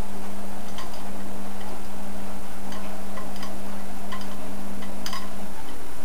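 Front-loading washing machine running with a steady low hum that stops about five and a half seconds in, with scattered light clicks and taps as a cat paws at the glass porthole door.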